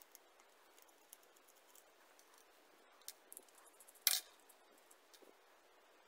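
Small plastic and brass fittings handled in gloved hands: faint scattered clicks, with one louder sharp click about four seconds in.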